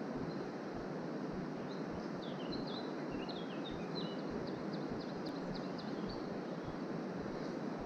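Steady rush of flowing river water, with a small songbird singing a string of quick high chirps from about two seconds in until about six seconds in.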